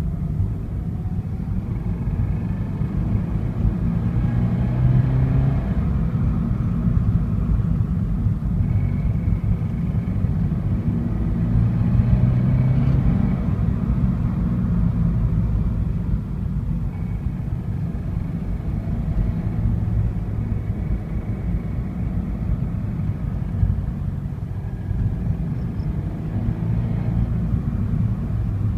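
A low, continuous engine rumble with a droning tone that swells and fades several times.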